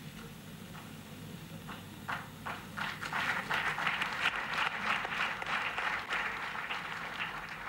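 Audience applauding: scattered claps start about two seconds in, swell into a full round of applause, and ease off near the end.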